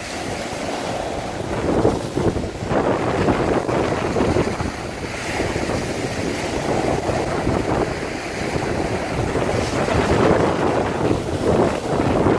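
Lake Superior waves washing on the shore, with wind gusting across the microphone in an uneven rushing noise.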